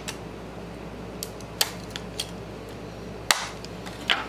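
Clear plastic lure case clicking and snapping as it is handled: a string of sharp, separate clicks, the loudest about three seconds in.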